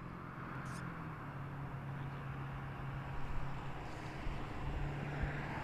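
Street traffic: a motor vehicle's engine hum with road noise, slowly growing louder.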